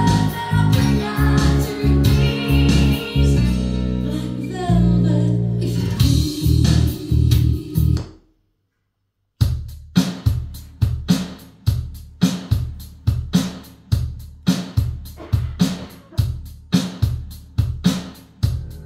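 Recorded music playing through a pair of B&W DM330 2½-way sealed floorstanding speakers. One song ends about eight seconds in, and after about a second of silence the next starts with a steady beat of about two hits a second.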